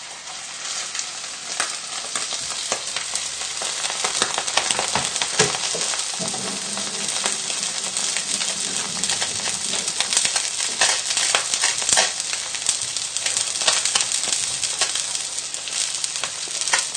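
Two skin-on trout fillets frying skin side down in a hot frying pan of oil, sizzling steadily with many small crackles and spits. The sizzle builds over the first few seconds, then holds.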